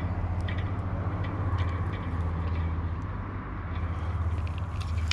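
Spinning reel being wound in as a hooked filefish is brought to the bank: a steady low mechanical hum with light scattered clicks.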